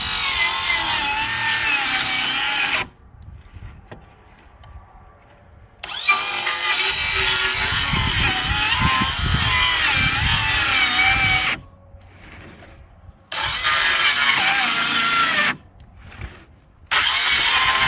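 A power tool cutting into wood, running in four bursts of a few seconds that each start and stop abruptly.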